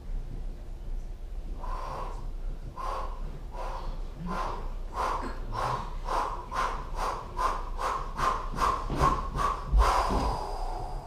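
A person's rapid, rhythmic panting in the manner of labor breathing, the breaths speeding up from under one a second to nearly three a second. It ends in a longer, louder breath out with a thump about ten seconds in.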